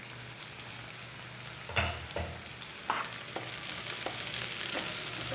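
Sliced tindora (ivy gourd) sizzling softly in oil in a nonstick frying pan over low heat. From about two seconds in, a spatula stirs the slices and knocks against the pan a handful of times.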